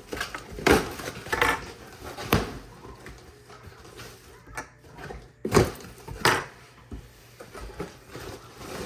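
Packaging and ordered items being handled and opened by hand: a few scattered knocks and clicks with rustling between them, the sharpest about half a second in and again past the middle.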